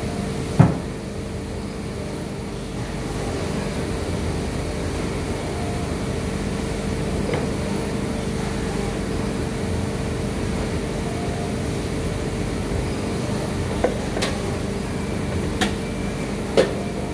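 Steady hum of factory machinery around an injection moulding machine, with a constant mid-pitched tone. Sharp knocks sound over it: a loud one about half a second in and a few more near the end, as someone works inside the machine's open mould area and climbs out.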